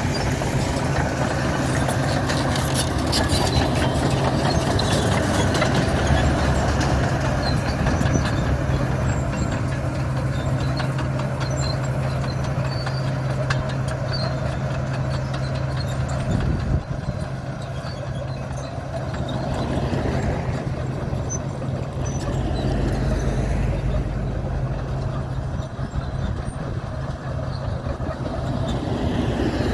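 Komatsu D61 bulldozer's diesel engine running steadily under load, with crackling and scraping from the tracks and blade as the bitumen chip-seal road surface is broken up. The sound eases about seventeen seconds in, then builds again.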